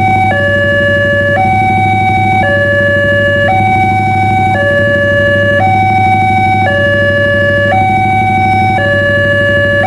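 Electronic railway level-crossing warning alarm from the loudspeaker on the signal post, alternating between a higher and a lower tone about once a second, sounding while the barriers are down for an approaching train. A steady low hum runs underneath.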